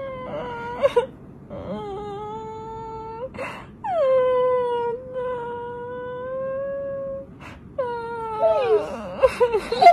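A person fake-crying in a series of long, drawn-out wails, each sliding down in pitch and then held for a second or more, the longest for about three seconds; near the end the wailing breaks into shorter, wavering sobs.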